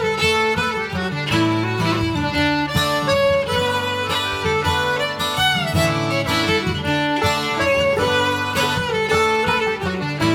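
Instrumental introduction to a folk song: a fiddle playing a melody over a plucked guitar accompaniment.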